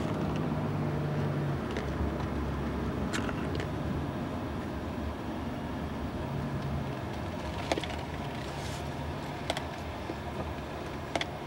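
Car driving, heard from inside the cabin: a steady low rumble of engine and road noise, with a few short sharp clicks.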